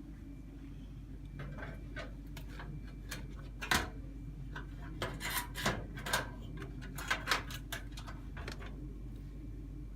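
Irregular clicks, taps and knocks of computer parts being handled and fitted into place by hand, with the sharpest knock about four seconds in and clusters of clicks around five to six and seven seconds in, over a steady low electrical hum.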